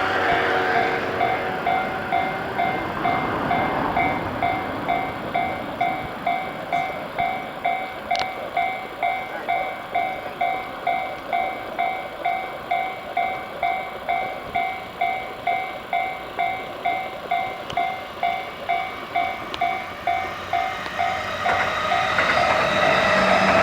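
Japanese level-crossing warning bell ringing steadily at about two strokes a second while electric commuter trains pass: one train's rushing runs through the first few seconds, and another train's noise grows louder from near the end.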